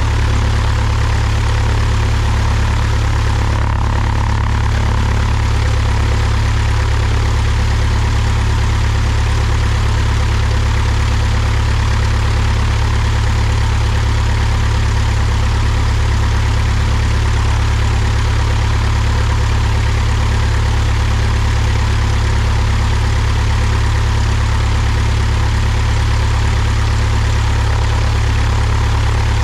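Cessna 172's piston engine and propeller idling steadily with a deep, even drone.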